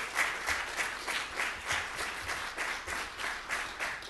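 Audience applauding, tapering off slightly near the end.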